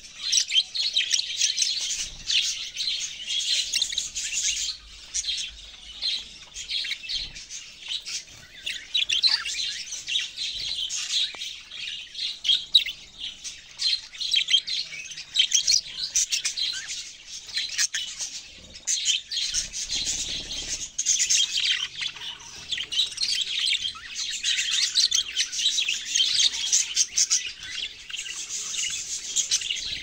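Budgerigars chirping and chattering without pause in fast, high-pitched twitters.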